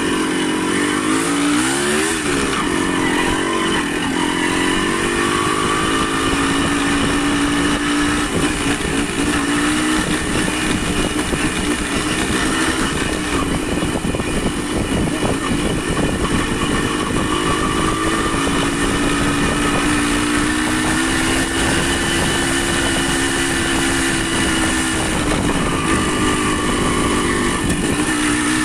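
A vehicle engine running under way, its pitch rising and falling as the speed changes, over a steady hiss.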